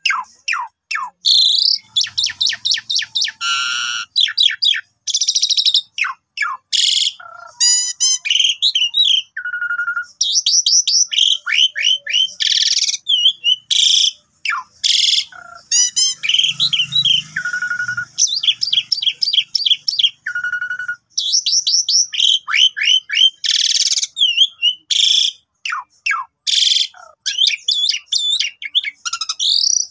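Javan pied starling (jalak suren) singing a long, varied song of clear whistles, fast rattling trills and harsh chattering notes with only short pauses.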